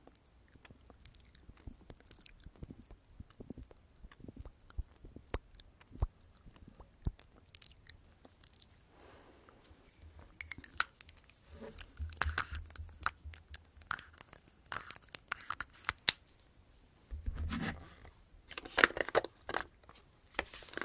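Close-miked ASMR mouth sounds: small wet lip clicks and smacks of lips pressed together over fresh lipstick. From about halfway on, these give way to rubbing and clicking as a lipstick tube and its cap are handled, with louder rustling of the cardboard lipstick kit box near the end.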